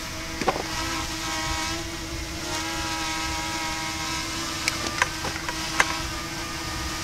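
Steady motor drone holding one pitch, with a few sharp clicks about half a second in and again around five to six seconds in.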